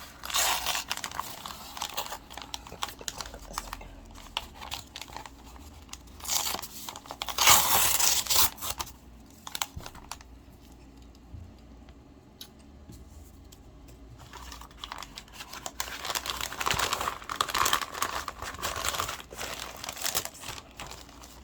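A shipping package being opened by hand: packaging tearing and crinkling in irregular bursts, loudest about seven seconds in, quieter for a few seconds in the middle, then rustling again.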